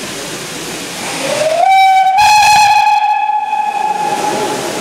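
Steam whistle of LMS 3F 'Jinty' 0-6-0 tank engine No. 47406 blown once for about three seconds. It slides up in pitch as it opens, steps up a little, then holds a steady note before fading out near the end, over a steady hiss.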